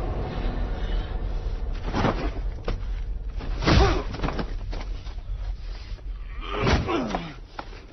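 Fight-scene punches and blows landing: a few heavy hits spaced one to three seconds apart, with smaller knocks between them. The last hit is followed by a grunt that falls in pitch.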